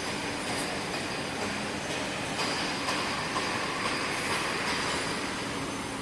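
Wire harness braiding machine running: a steady mechanical running noise with faint fine ticks, a low hum and a thin high tone.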